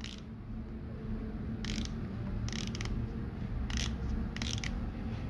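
Unidirectional ratcheting bezel of a Chinese Seiko Tuna homage dive watch being turned by hand: a few short, sharp clicks in small groups, spaced irregularly, over a faint low background.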